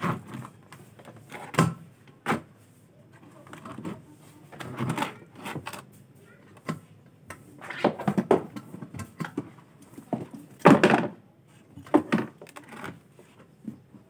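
Irregular plastic knocks, clunks and rustling as the plastic base and cabinet of a top-loading washing machine are handled and the drain hose shifts about. The loudest clatter comes about eleven seconds in.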